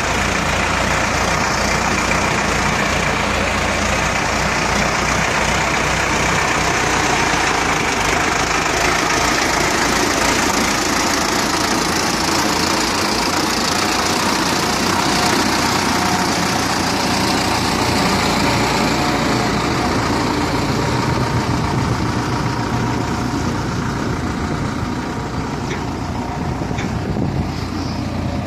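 Farm tractor engine running steadily as the tractor is driven.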